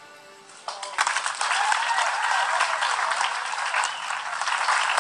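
Soft recorded music with sustained instrument notes, then, just under a second in, loud clapping breaks out with voices among it and goes on steadily.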